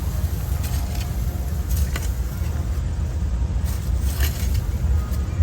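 Steady low rumble, with a few brief scrapes and rustles of digging in garden soil about two and four seconds in.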